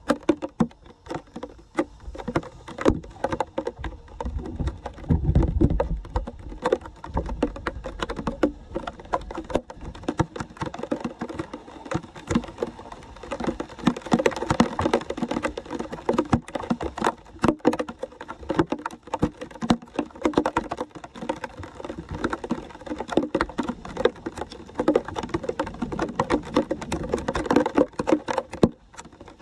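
Rain pattering on flood water over a street, a dense, irregular crackle of drops, with a brief low rumble about five seconds in.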